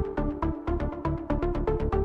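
Electronic background music with a fast, steady beat and a repeating synth melody.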